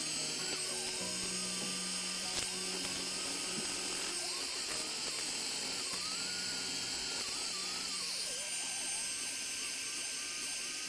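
A small high-speed power tool runs steadily, a whining motor sound typical of rust-removal work on a pipe wrench, under background music.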